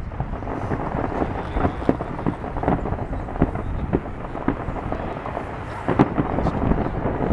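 Fireworks going off: many irregular bangs overlapping into a continuous rumble, with one sharper bang about six seconds in.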